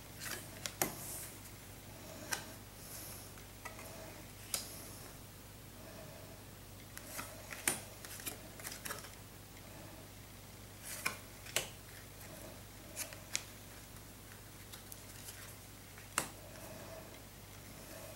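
Trading cards being shuffled through by hand, each card slid from the front to the back of the stack with a short, crisp papery snap. About a dozen snaps come at irregular intervals, some in quick pairs.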